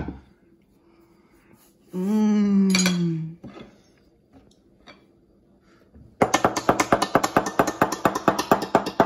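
A rapid drum roll tapped out by hand, about eight even taps a second, starting about six seconds in. Before it, about two seconds in, a person hums a long note that falls in pitch.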